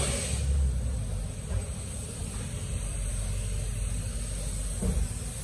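Workshop air compressor running steadily with a low rumble, and a single thump near the end.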